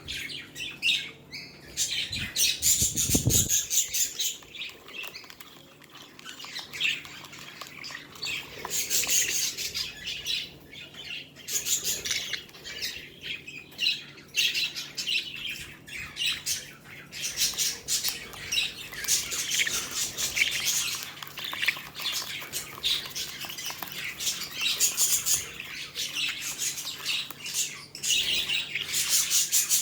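Pet budgerigars chattering and squawking, in bursts of rapid, high-pitched chirps that come and go.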